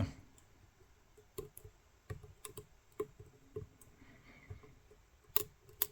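Scattered small metallic clicks of a pick working the wafers of a wafer lock held under tension, the wafers setting one by one; the two loudest come near the end.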